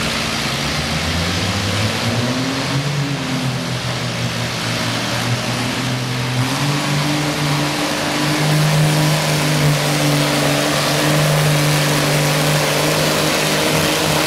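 1959 Farmall 560 pulling tractor's engine under load as it pulls the weight-transfer sled. It revs up with a rising pitch about two seconds in, then holds steady at high revs and gets louder through the second half.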